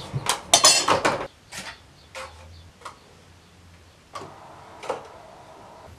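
Stiff paper model parts being handled and pressed onto a wall: a short burst of crackling and rustling about half a second in, then a few separate light taps and clicks.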